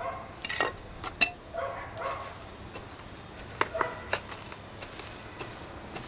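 Small flat metal hand tool scraping and digging into dry potting soil in a terracotta pot, loosening the topsoil. Irregular scrapes and sharp clinks, a few ringing briefly.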